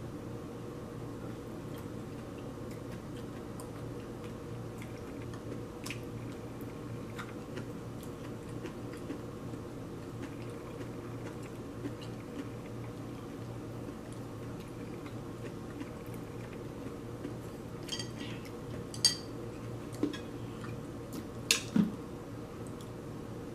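Utensils clinking on ceramic plates during a meal: faint scattered taps, then a handful of sharp clinks near the end. A steady low hum runs underneath.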